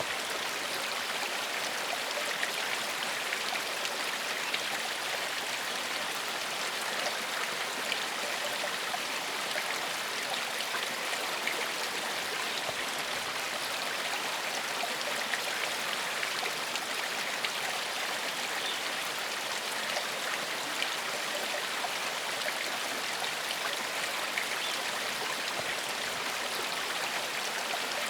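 A small forest stream flowing steadily, water running and splashing over stones with a continuous even rush.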